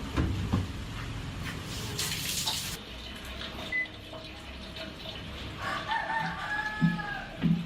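A rooster crows once, about six seconds in, one call of about a second and a half. A short hiss comes about two seconds in, and a few low knocks follow near the end.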